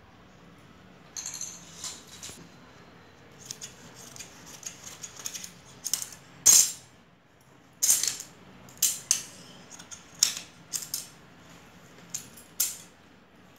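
Tailoring scissors cutting through folded cotton fabric: a string of short, crisp snips at irregular spacing, about one a second, with some rustling of the cloth between them.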